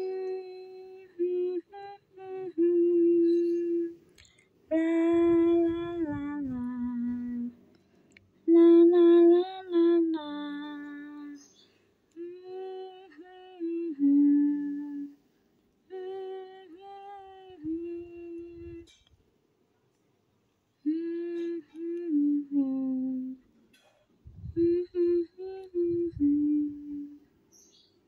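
A voice humming a slow tune in short phrases, with pauses between them.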